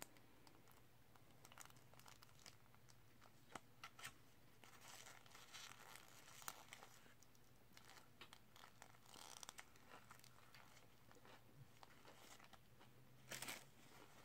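Faint crinkling of a paper burger wrapper and a sauce packet, with soft clicks of biting and chewing a burger. A louder paper crinkle comes near the end.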